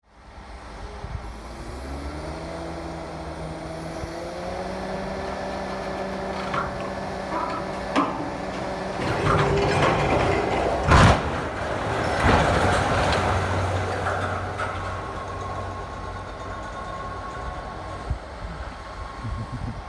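An engine revs up and then runs steadily. About halfway through comes a loud, sharp bang, followed by a few seconds of rumbling noise.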